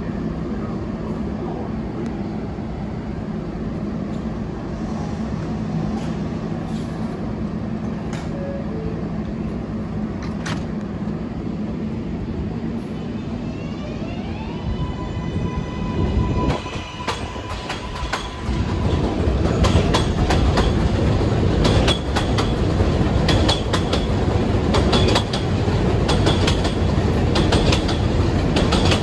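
R188 subway train on the 7 line running with a steady hum. About halfway through, an electric motor whine rises and holds. In the second half the sound grows louder with wheel clatter and rapid clicks over the rail joints.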